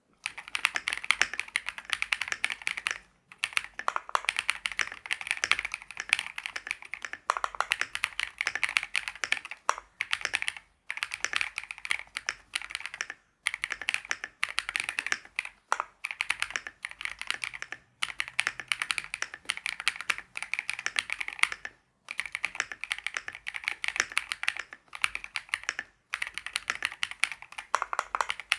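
Typing on a KiiBOOM Phantom 81 V2 gasket-mounted mechanical keyboard with stock KiiBOOM Crystal linear switches, a PC plate and SA-profile keycaps. Fast runs of keystroke clacks come in bursts of a few seconds, broken by short pauses.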